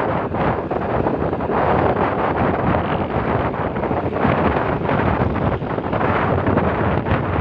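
Wind rushing and buffeting over the microphone of a phone on a moving motorcycle: a loud, steady rushing noise that swells and dips.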